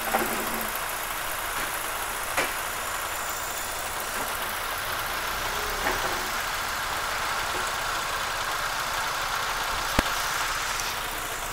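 Daewoo Gentra's 1.5-litre four-cylinder petrol engine idling steadily, with a few light clicks and one sharp click near the end.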